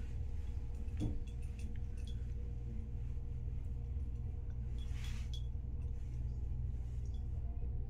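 Steady low room hum with a faint steady tone above it, a few faint clicks about a second in, and a brief rustle about five seconds in.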